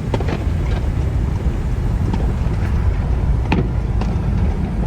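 Wind buffeting the microphone, a steady low rumble, with a few faint sharp pops or knocks on top.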